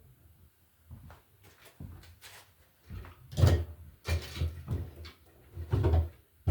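A series of knocks and clunks from handling tools and cable during electrical repair work, louder and more frequent in the second half.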